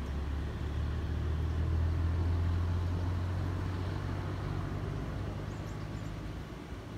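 Low, steady rumble of a motor vehicle's engine, growing louder about two seconds in and slowly fading toward the end.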